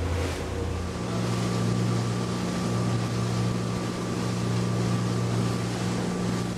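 Motorboat engine running steadily under way, its note stepping up a little about a second in, with wind and water hiss.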